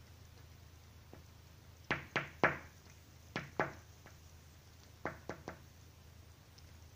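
A tit pecking at window glass with its beak: sharp taps in three quick bursts, three, then two, then three.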